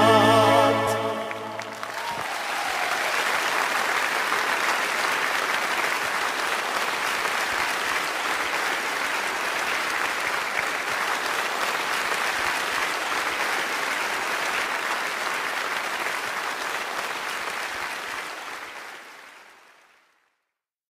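A song's last sustained notes end about two seconds in, giving way to a large arena crowd applauding. The applause holds steady, then fades out near the end.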